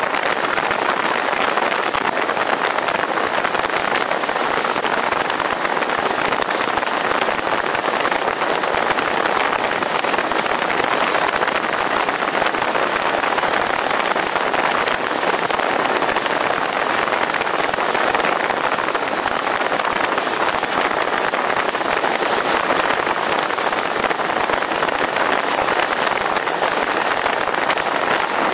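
Steady rush of wind and water aboard a high-speed zodiac boat running flat out, its wake churning and spraying behind the hull, with wind buffeting the microphone.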